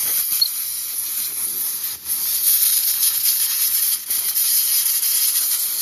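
Aerosol cleaner sprayed in a steady hiss onto a Honda C70's contact-breaker points, let off briefly about two and four seconds in.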